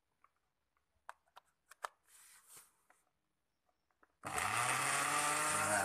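A few light clicks and taps, then about four seconds in a Panasonic blender's motor switches on and runs steadily, spinning water in its glass jar. With its worn bushing replaced, it runs smoothly, like a new blender.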